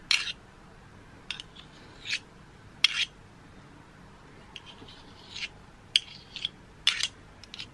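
Metal spoon scraping margarine off against the wires of a steel whisk in a bowl: a series of short, separate scrapes and clicks.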